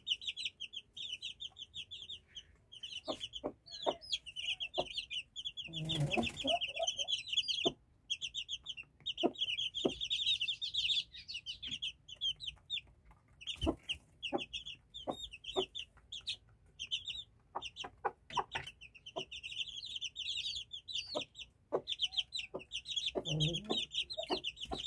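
Young Índio combatente game-fowl chicks peeping almost constantly in a rapid, high-pitched chorus. Short ticks are scattered through it, and two brief lower sounds come about six seconds in and near the end.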